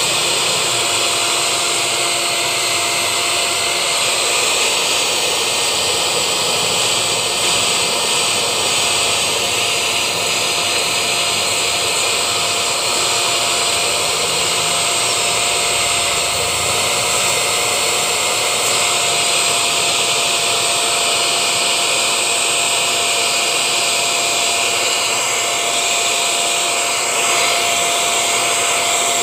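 Canister vacuum cleaner's motor running steadily with a constant whine, blowing air out through the exhaust vent by its wheel.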